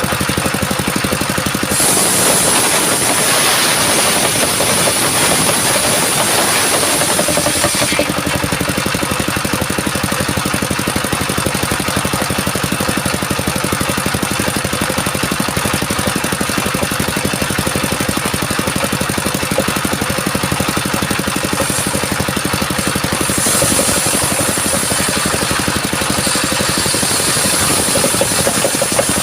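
Stationary diesel engine running steadily, driving a circular saw blade. The blade rips through coconut wood twice, with a loud high hiss: from about two to eight seconds in, and again from about 23 seconds in until near the end.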